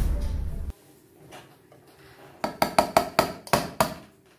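A quick run of about eight metallic clinks about two and a half seconds in: an emptied condensed-milk can knocked against a stainless steel mixing bowl to shake out the last of the milk. A brief rushing noise dies away at the very start.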